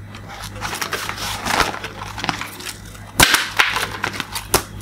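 A moulded-plastic toy vest being handled and turned over: scraping and crackling of the stiff plastic, then several sharp knocks and clicks in the last second and a half.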